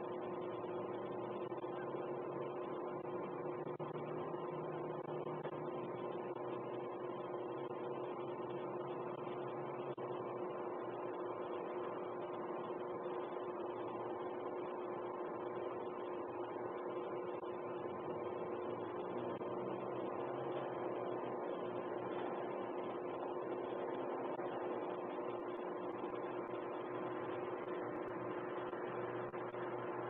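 A steady hum of a few held tones over an even hiss, unchanging.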